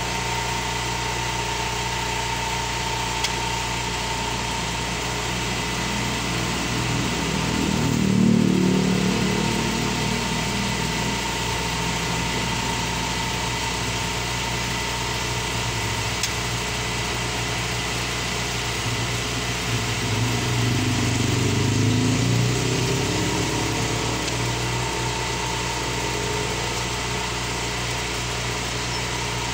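Road traffic: steady engine noise, with one vehicle passing about eight seconds in and another swelling and fading around twenty to twenty-three seconds in.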